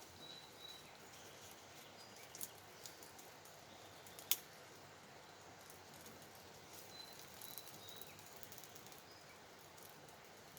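Faint campfire crackling: scattered small pops, with one sharper snap about four seconds in. A few brief high chirps of birds come near the start and again later.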